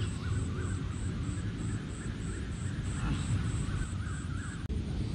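Evening outdoor ambience: a high, steady insect chirp about four times a second and a bird's warbling calls over a low rumble. The chirping stops with a click near the end.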